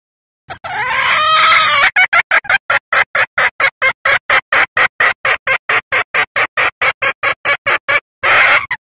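Recorded call of a female red junglefowl, the kind used to lure males: a drawn-out call that bends up and down in pitch, then a rapid run of short clucks at about five a second, and one brief call near the end.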